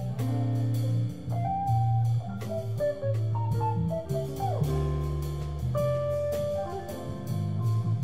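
A small ensemble playing a jazz-tinged piece live: electric bass and cellos on the low notes, held string melody notes above, and a drum kit keeping time with steady strikes.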